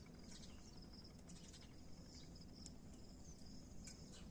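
Near silence: faint outdoor ambience with a steady, high-pitched insect trill and a few faint scattered ticks.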